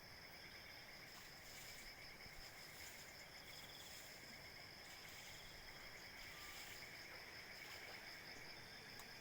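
Faint, steady chorus of crickets and other night insects trilling, with a higher chirping that comes and goes several times.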